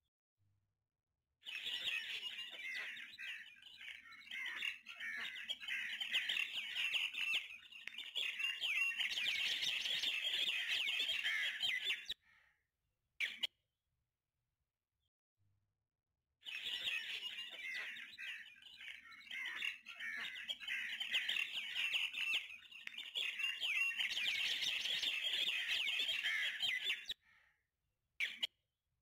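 A dense chorus of small birds chirping and twittering, many calls overlapping. The same roughly ten-second stretch plays twice, with dead silence between.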